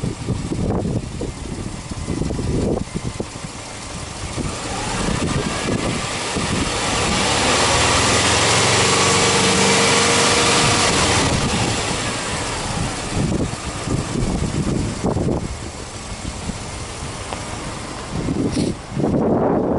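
Subaru Impreza WRX Type R STi's 2.0-litre turbocharged flat-four (EJ20 boxer) running with the bonnet open and being free-revved in uneven blips. Around the middle it is held up in a longer, louder rev that rises and then falls away before the blips resume.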